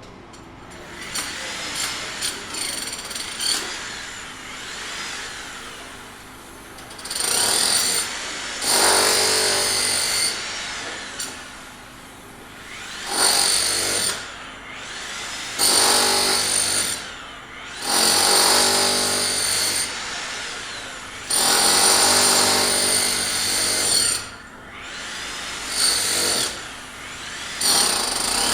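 Power tool on a sidewalk repair job, run in about eight bursts of one to three seconds, each with a steady high whine, with a few knocks early on and a background hum between bursts.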